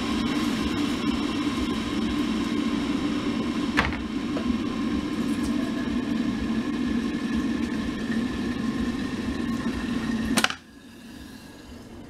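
Electric kettle heating water, a loud steady rushing hum, which switches off with a sharp click about ten seconds in and goes abruptly quiet.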